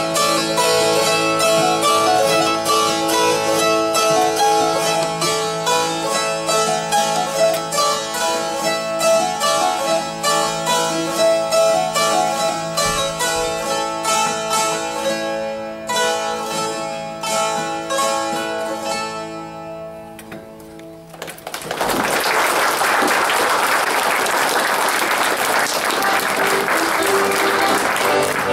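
Two langeleiks, Norwegian droned box zithers, strummed in a folk tune, the fretted melody over a steady drone. The tune dies away about twenty seconds in, and applause follows.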